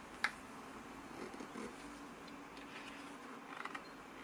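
Glossy pages of a hardcover booklet being turned and handled: a sharp paper tap just after the start, then a few light clicks and rustles, with a short cluster of them near the end.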